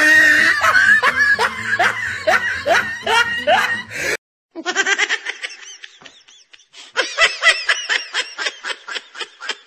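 Laughter in rapid, repeated bursts. It breaks off briefly about four seconds in, then picks up again.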